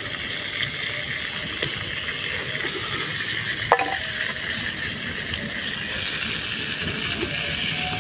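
Banana fritter batter frying in hot oil in a pan over a wood fire, giving a steady sizzle; the batter is not yet cooked enough to flip. A single sharp clink comes about four seconds in.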